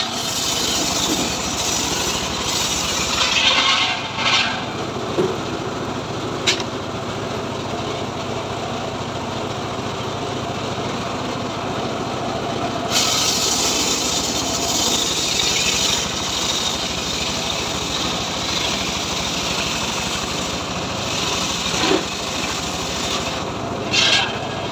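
A homemade engine-driven circular sawmill runs steadily while its large blade rips lengthwise through timber. The cutting hiss gets louder from about halfway through, when a log is pushed into the blade, and a few sharp knocks come from the wood being handled.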